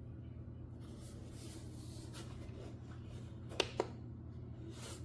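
Quiet room tone with a steady low hum and faint handling rustle, broken by two light clicks in quick succession about three and a half seconds in.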